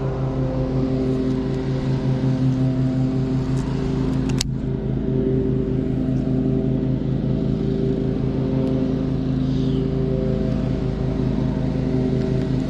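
Boat's outboard motor running at a steady speed, with one sharp click about four seconds in.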